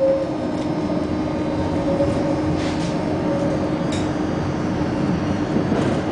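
Tram running between stops, heard from inside the car: a steady rumble of wheels on rails with a steady low hum, and a light click about four seconds in.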